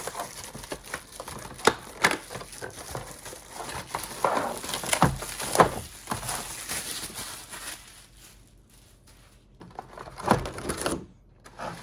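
Packaging of a new pliers set being opened by hand: crinkling and crackling wrapping with irregular clicks and knocks, quieter for a couple of seconds near the end before a few sharper knocks.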